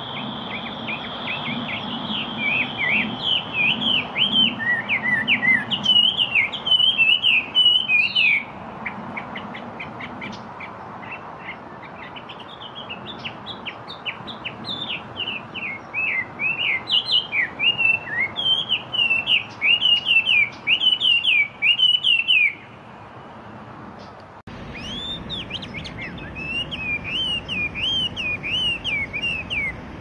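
Chinese hwamei singing: long, rapid runs of varied, clear sliding notes, with a short pause about three-quarters of the way through before the song picks up again.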